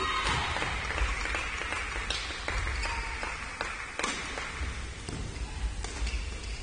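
A sharp hit right at the start as a badminton rally ends, then clapping and cheering that fades over about four seconds, with scattered taps on the court.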